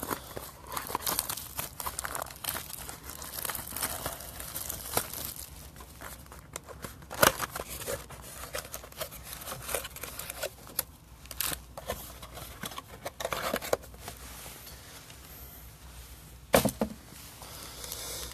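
Packaging of baseball card packs being torn open and crinkled by hand: an irregular run of rustles and crackles, with sharper crackles about seven seconds in and again near the end.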